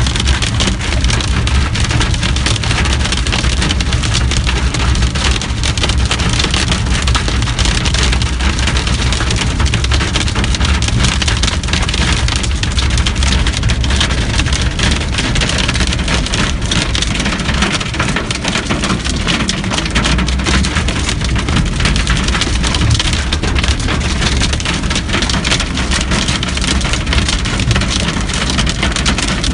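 Heavy rain mixed with hail pelting a car's roof and windshield, heard from inside the car: a dense, steady patter of countless small impacts over a low rumble.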